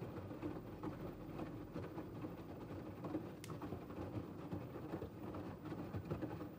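LG TurboWash front-loading washing machine tumbling a wet cotton load during its main wash held at 50 °C: laundry and water slosh and splash in the drum in an uneven, continuous patter. A single sharp click comes about three and a half seconds in.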